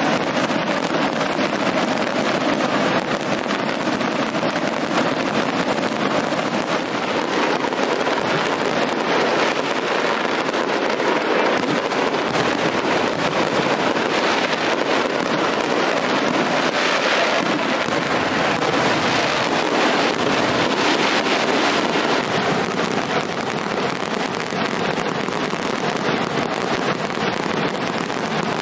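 Aerial fireworks display going off in a dense, unbroken barrage of bangs and crackle.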